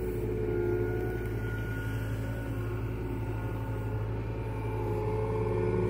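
John Deere mini excavator's diesel engine running steadily under working load, with a whine that wavers slightly in pitch as the boom and bucket are worked.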